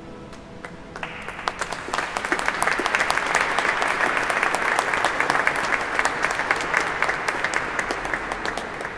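Audience applauding, starting about a second in, with many hands clapping at once, then thinning out near the end.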